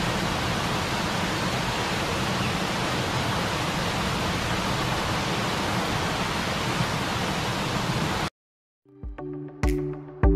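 Steady rush of falling water from a waterfall, cutting off abruptly near the end. After a brief silence, electronic music with a regular beat starts.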